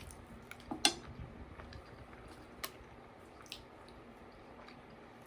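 Faint wet chewing and mouth clicks of a person eating close to the microphone, with a few sharp clicks, the loudest about a second in.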